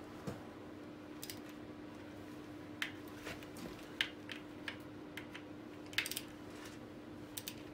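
Small torque wrench clicking as the VR6 engine's timing-cover bolts are tightened to 10 Nm. Each sharp metal click marks a bolt reaching its set torque, about half a dozen spread a second or two apart. A steady faint hum runs underneath.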